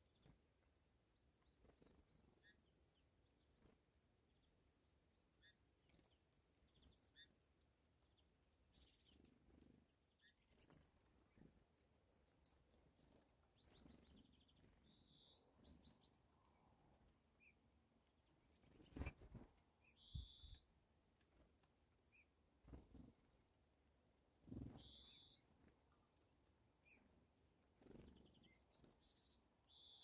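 Faint short high chirps from small songbirds, one about every five seconds. There are a few soft thumps in between and a single sharp click about a third of the way in.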